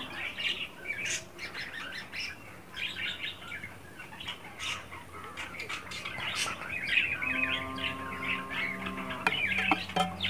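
Birds chirping and tweeting in the background, with a few light clinks of a metal spoon against a steel tumbler. A steady humming tone comes in for about two seconds some seven seconds in.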